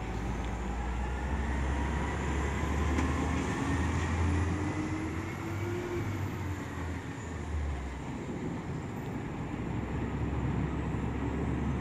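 Diesel engines of Burrtec Amrep automated side-loader garbage trucks pulling away: a low rumble with a whine that rises in pitch, then falls about six seconds in.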